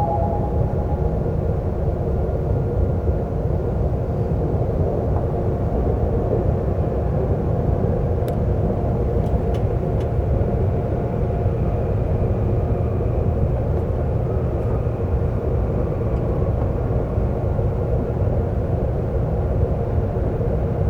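Seoul subway train running, a steady low rumble of wheels and running gear with a faint hum of tones over it. A few faint ticks come about eight to ten seconds in.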